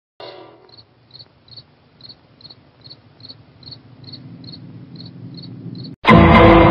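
Crickets chirping in an even rhythm, about two to three short high chirps a second, over a faint low hum. Near the end a sudden loud sound with several held tones cuts in.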